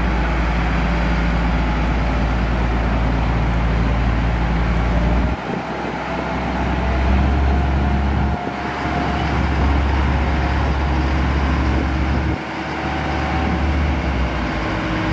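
Motors driving a pontoon swing bridge's propellers, a loud low drone whose note changes abruptly three times as the bridge swings across the channel.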